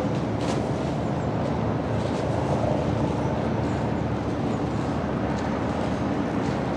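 Steady low rumble of ships' engines across the harbour, from the tug and the tall ship passing under power, with a few faint ticks.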